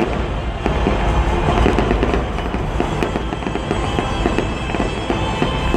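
Fireworks display: a dense, continuous run of rapid bangs and crackles overlapping one another, with music playing underneath.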